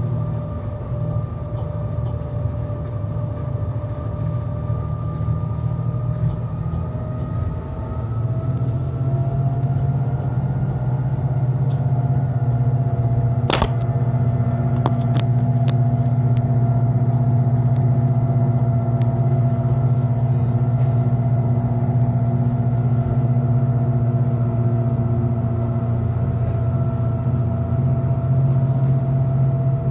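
Electric rack-railway railcar running downhill, heard from the driver's cab: a steady low rumble of the running gear under a whine from the electric drive that rises slightly in pitch about a third of the way in and then holds. A single sharp click about halfway through, followed by a few lighter ticks.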